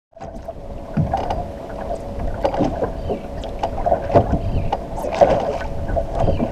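Lake water slapping irregularly against a bass boat's hull, with wind buffeting the microphone and a steady hum underneath.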